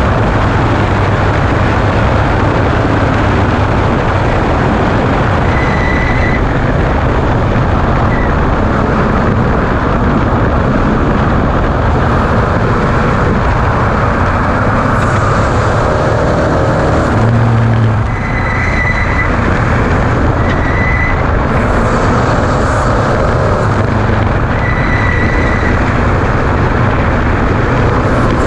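Ford Ranger desert race truck running hard at race speed: a loud, steady engine drone under heavy road and chassis noise, with a short high beep sounding several times.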